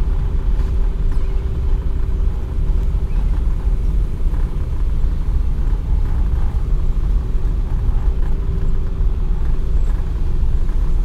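Car driving along a sealed road: a steady low rumble of engine and tyres, with a faint steady hum above it.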